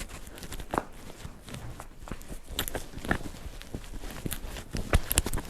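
Close, irregular crunching and rustling with sharp knocks, from sheep and a person moving about in the barn, the knocks coming thicker and louder near the end.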